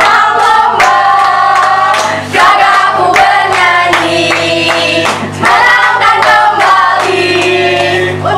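A small mixed group of teenage boys and girls singing a chant together in unison, clapping along as they sing.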